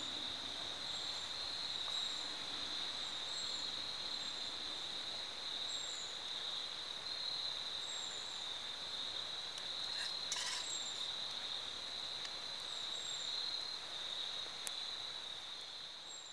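Evening chorus of crickets: a continuous high-pitched trill, with faint short chirps above it about once a second and a few brief clicks a little after ten seconds.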